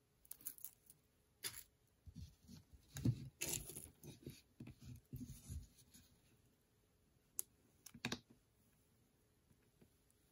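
Faint handling of jewelry on a tabletop: irregular clicks and rustles of a crystal bead necklace and a thin metal chain for the first several seconds, then two sharper clicks.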